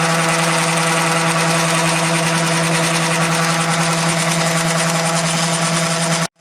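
Atlas horizontal milling machine running with its table power feed engaged: a steady hum with a fast, even rattle from the motor, countershaft, belts and step pulleys. It cuts off abruptly near the end.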